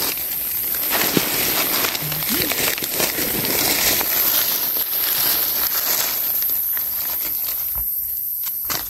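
Dry fallen leaves rustling and crackling as a hand brushes through the leaf litter to uncover a mushroom.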